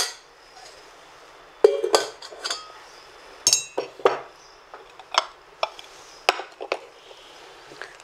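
Stainless-steel saucepan, tea strainer and glass mug clinking and knocking as they are handled and set down on a tabletop cooktop: a sharp knock at the start, then scattered knocks and clinks, one ringing briefly like metal about three and a half seconds in.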